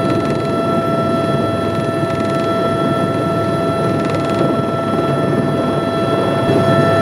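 Airbus tour helicopter running, heard inside the cabin: a steady dense rumble with a steady high whine over it.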